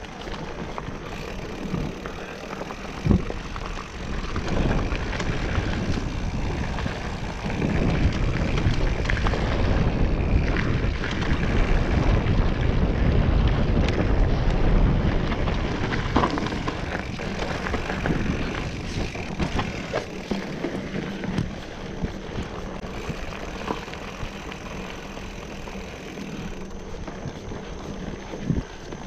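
Wind rumbling on the microphone of a moving rider, heaviest from about a quarter to halfway through, with a sharp knock about three seconds in.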